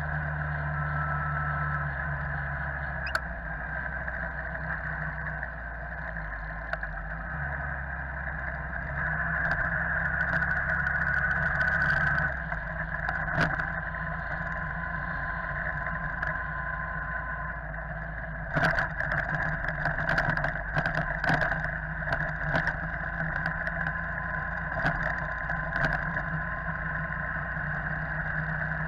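Motorbike engine running under way, heard through a camera fixed on the bike, with steady wind and road noise; the engine note changes a few times. In the second half there is a run of sharp knocks and rattles.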